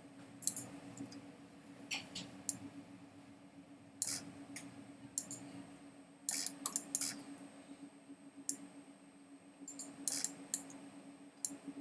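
Irregular clicks of a computer mouse and keyboard, about a dozen scattered over the seconds, over a faint steady hum.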